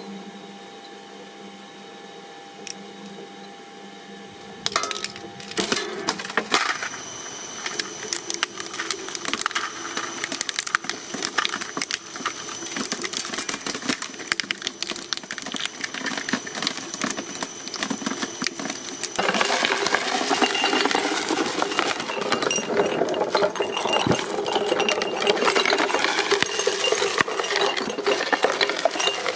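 Shredding machine running with a steady hum. About five seconds in it starts breaking up material, with a dense, continuous crackle of small clicks and knocks that grows louder about nineteen seconds in.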